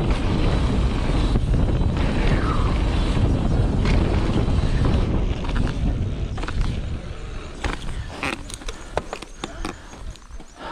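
Wind on the microphone and mountain-bike tyre rumble as the bike rolls off a dirt trail onto grass. The sound eases off after about six seconds as the bike slows, leaving a scatter of sharp clicks and knocks from the bike.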